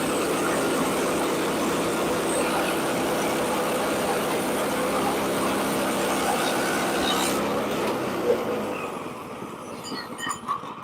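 Portable bandsaw mill running, its engine and band blade sawing through a log with a steady noise. The sound falls away about eight seconds in.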